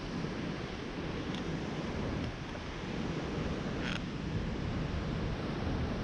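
Steady rush of a waterfall and fast river water, with wind buffeting the microphone. A brief high chirp about four seconds in.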